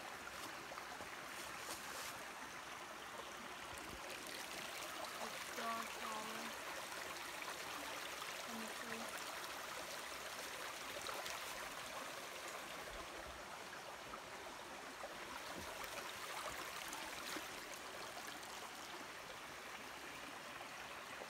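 Small rocky woodland stream running over stones and trickling into a pool: a steady rush of flowing water.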